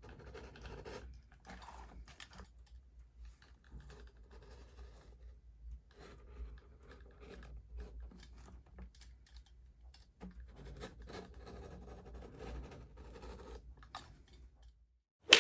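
Glued layers of a leather knife sheath being trimmed along the edges: irregular runs of small scratchy cutting and scraping strokes with short pauses between them. A single sharp knock comes right at the end.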